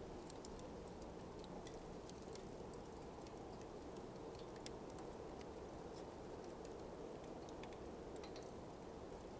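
Smouldering coals crackling softly: sparse, irregular small clicks and pops over a steady low hush.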